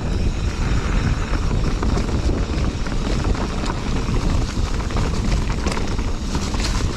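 Mountain bike descending fast on a dirt singletrack through a bermed corner: steady wind buffeting on the helmet camera's microphone over the rumble of knobby tyres on dirt, with small clicks and rattles from the bike.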